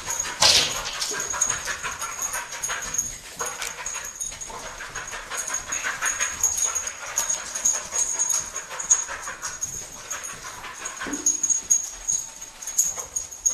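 An English springer spaniel cadaver dog making small whimpering and panting sounds, amid faint scuffles and rustling.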